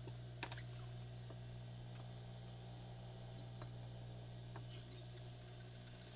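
Faint, scattered small clicks and light handling noises over a steady low hum.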